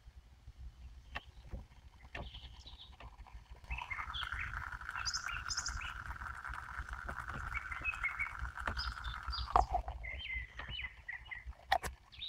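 Birds chirping, and for several seconds in the middle a steady hiss from water heating toward the boil in a 12-volt electric travel cup, small bubbles forming on its bottom. It starts and stops abruptly, with a single click as it ends.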